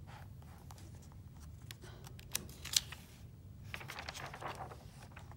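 Faint rustling and light clicks of a hand handling the paper pages of a picture book, over a low room hum, with two sharper ticks a little past two seconds in.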